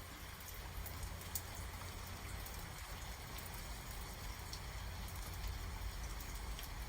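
Steady rain falling during a thunderstorm, with individual drops ticking close by now and then.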